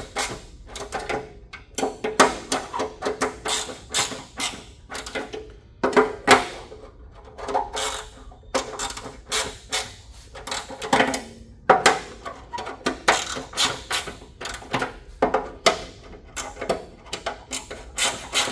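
Mini ratchet clicking in irregular runs as fasteners are snugged down into the underside of a GE Panda infant warmer's plastic bed, with knocks of tool handling against the plastic.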